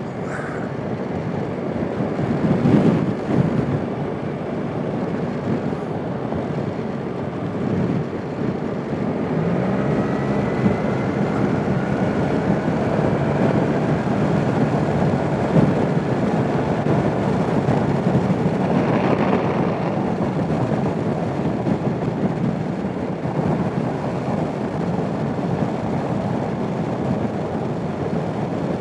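Suzuki Burgman 650 maxi-scooter being ridden: its parallel-twin engine runs under a steady rush of wind and road noise, with a faint rising whine about ten seconds in.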